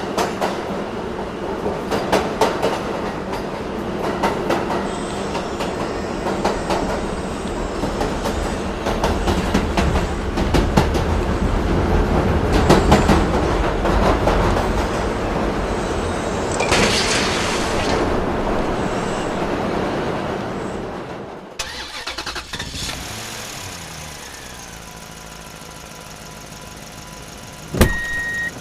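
Radio-controlled model trucks and excavator running: dense motor and gear noise with many clicks and scrapes. About three-quarters of the way in it cuts to a quieter stretch with a rising and falling whine, and a single loud knock near the end.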